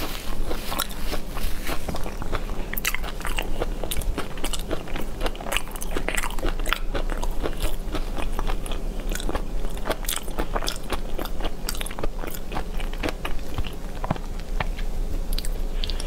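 A person chewing and crunching crisp food close to a clip-on microphone, with a dense, irregular run of crunches and crackles.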